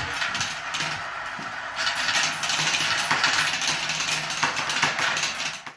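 Marbles rattling and clicking down a plastic marble run's tubes and funnels: a dense run of small clicks that grows busier about two seconds in.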